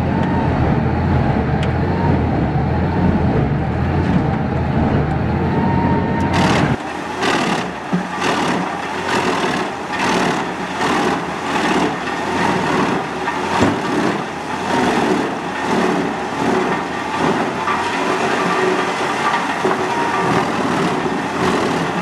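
Truck-mounted Mus-Max wood chipper chipping logs. At first there is a steady low engine drone, heard from inside the crane cab. About six seconds in the sound changes to the machine heard from outside: a rapid, repeated cracking and crunching as the log is cut into chips, over the running machine.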